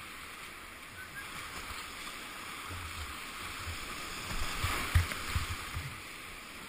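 Rushing whitewater of a river swollen by a dam release, heard from a kayak running the rapids. About four and a half seconds in, the kayak hits a breaking wave and the noise swells, with sharp splashes and thumps of water against the boat, the loudest about five seconds in.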